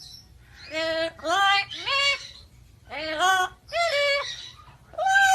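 Parrot vocalising: a string of about six short, clear pitched calls, most rising in pitch and then holding, in the manner of mimicked speech or meowing.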